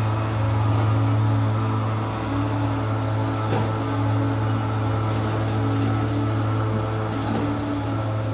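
Heavy diesel construction machinery, a dump truck and excavator, running with a steady low hum while the truck pulls away. A few faint knocks sound over it.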